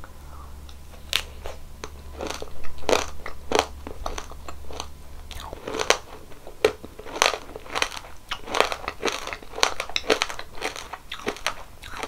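Close-miked crunching and chewing of crunchy ice cream: sharp, crackly bites and chews come several times a second, some louder than others.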